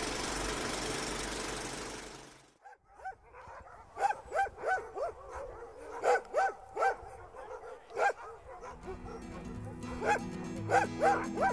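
A hissing rush fades out over the first two seconds. Then a pack of sled dogs barks and yips excitedly in short, sharp calls, with music with steady low tones coming in under the barking near the end.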